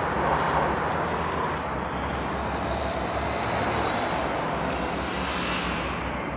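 City street traffic noise: a steady rumble and hiss of passing vehicles.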